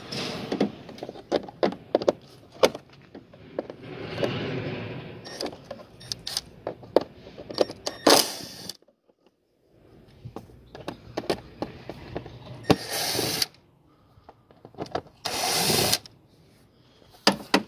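Cordless power driver with a Torx bit running in several short bursts as it backs screws out of the plastic air filter housing. Between the bursts come sharp clicks and knocks as the tool and housing are handled.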